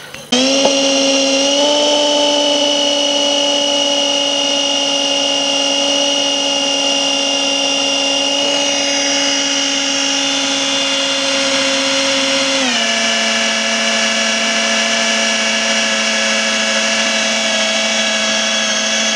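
Hand-held electric drill running steadily with a motor whine as it bores a 2 mm hole through a small piece cut from a mains-plug pin. About two-thirds of the way through, the pitch drops a step and the drill runs on slower.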